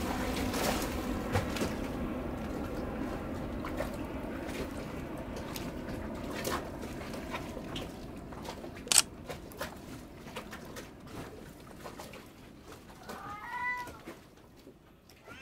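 A background hiss with scattered clicks fades away slowly. Near the end comes a short rising-and-falling call, like a cat's meow, and a shorter one follows just before the close.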